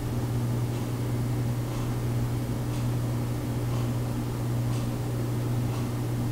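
Steady low machine hum, with faint ticks about once a second.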